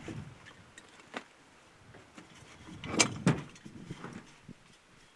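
Climbing tree stand and backpack being handled and set down on a rack: a few scattered knocks and rattles, the loudest two clunks close together about three seconds in.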